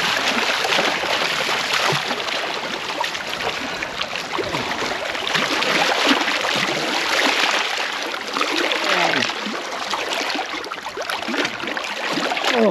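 Water splashing and sloshing against rocks in the shallows as a hooked catfish thrashes while it is landed by hand; a steady, continuous churning.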